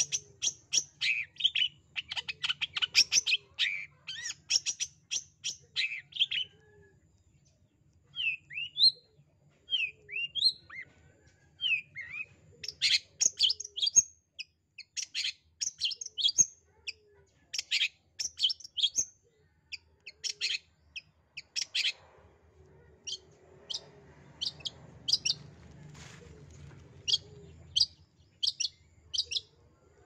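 Long-tailed shrike singing in bursts: rapid chattering phrases, then a few short rising whistles, more chatter, and near the end a run of sharp single notes about two a second.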